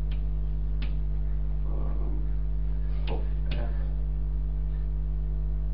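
Chalk writing on a blackboard, with a few sharp taps of the chalk, over a steady electrical mains hum that is the loudest sound.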